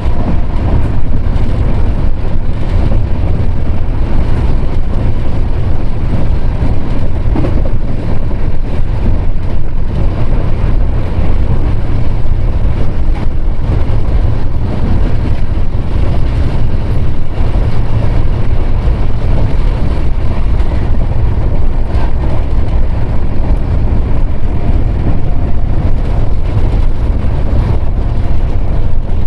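Jan Shatabdi Express passenger train running: a loud, deep, steady rumble that never lets up.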